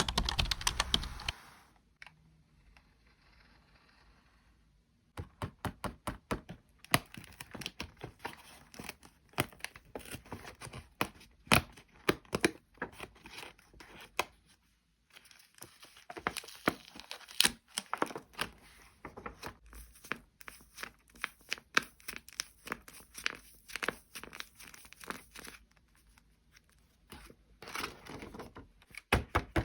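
Paper being crinkled and torn by hand in dense, irregular crackles and snaps, with a brief pause before it starts and another near the end.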